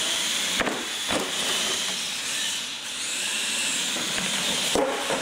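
Electric R/C monster trucks driving hard on a concrete floor: a steady high whine and hiss of the motors, gears and tyres. A few sharp knocks come as the trucks bounce over ramps, about half a second in, again a second in, and near the end.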